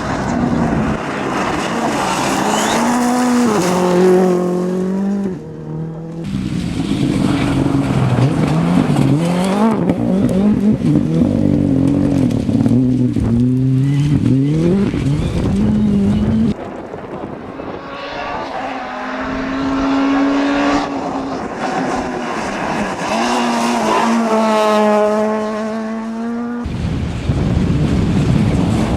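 Rally cars driven hard on a special stage, their engines revving up and down through the gears, with tyres squealing at times. Several separate passes follow one another with abrupt cuts between them.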